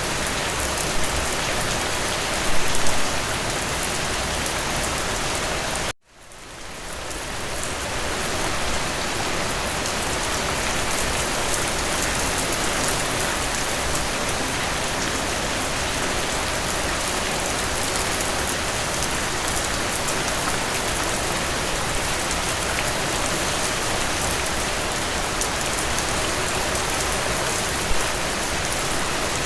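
Gentle rain falling steadily. About six seconds in, the sound cuts out abruptly and then fades back up over a couple of seconds.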